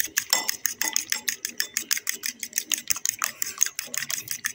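A fork whisking beaten eggs in a ceramic bowl, its tines clicking against the bowl in a fast, even rhythm of about nine strokes a second.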